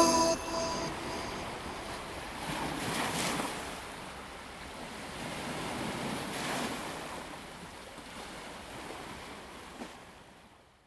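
Waves washing against the shore, swelling and easing about every three seconds, then fading out near the end. The last notes of music ring out and die away in the first second.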